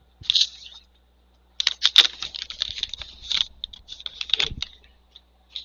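Trading cards and their packaging being handled: dry crinkling, clicking and sliding in short bursts, with a longer busy stretch about two seconds in.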